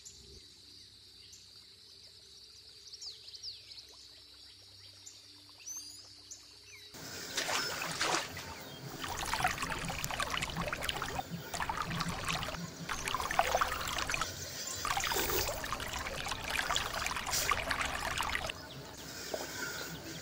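Hands scooping and splashing water in a shallow, rocky stream: irregular splashes and trickling that start about a third of the way in and stop shortly before the end. Before that, only faint outdoor ambience with a thin high steady tone.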